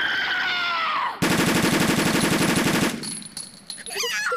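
Anime sound effects: a girl's drawn-out cry falling in pitch, then about 1.7 s of a rapid, even string of sharp slaps, fast as machine-gun fire.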